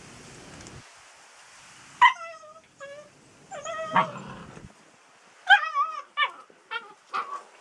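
Seven-week-old Polish Tatra Sheepdog puppies play-fighting, giving a string of short, high yips and whines, some wavering in pitch. The calls start about two seconds in and come more thickly near the end.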